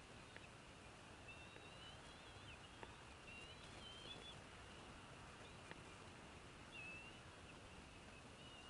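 Near silence with a background hiss, over which faint, thin, wavering high-pitched bird calls come and go, with a few faint ticks.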